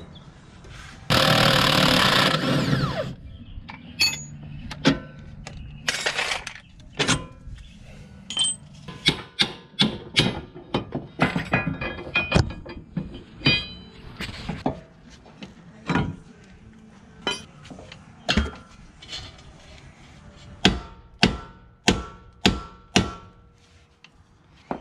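Metal hand tools clanking and tapping against a car's front suspension parts, a long irregular series of sharp clinks and knocks. About a second in, a loud, even rushing noise lasts about two seconds.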